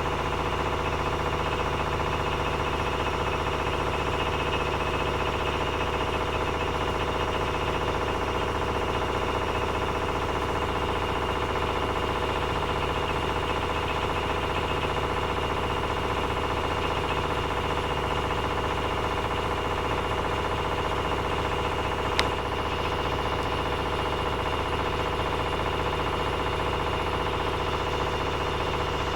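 Privileg 9515 Sensation washing machine on its 900 rpm spin: a steady motor whine and hum with a knock from inside the machine that comes only with laundry loaded, while the drum has no play; the cause is unknown to the owner. One sharp click about 22 seconds in.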